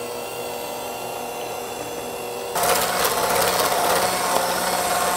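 KitchenAid electric hand mixer running with its wire beaters whipping heavy cream into a cream cheese filling in a glass bowl, a steady motor whir. About halfway through it gets louder and harsher.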